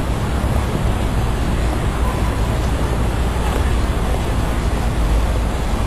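Steady outdoor city background noise of a busy square, an even hubbub over a deep rumble, with no single event standing out.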